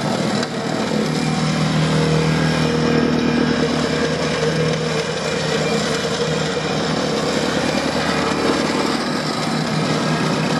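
An engine running steadily at a fairly high speed, getting slightly louder about half a second in and then holding steady.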